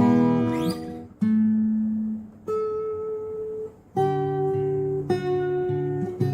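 Acoustic guitar being played: a chord rings out and fades, then single notes and chords are plucked one after another, each left to ring.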